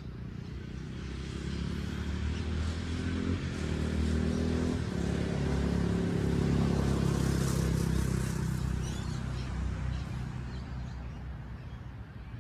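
A motor vehicle driving past: its engine hum builds up, is loudest a little past the middle, and fades away over about ten seconds.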